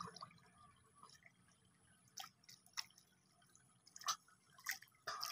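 Water dripping and splashing off a cast net as it is lifted out of the water: a handful of separate drips and small splashes over a faint background hiss.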